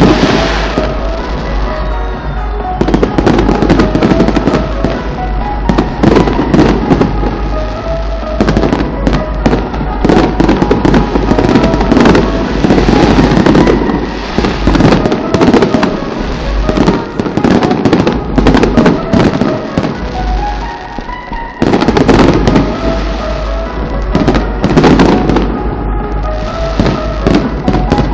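Fireworks going off: a dense, continuous run of bangs and crackles, with a brief thinning near the two-thirds mark before the volleys pick up again.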